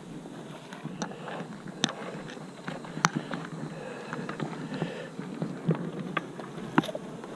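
Scattered light knocks and clicks, about a dozen at uneven intervals, over a steady low hiss.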